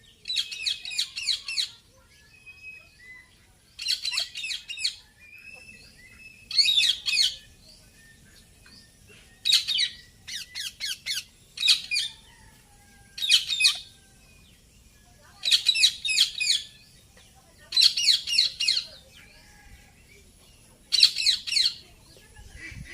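Indian ringneck parakeet calling in bouts of rapid, high-pitched squawks, each about a second long, with a short pause between bouts.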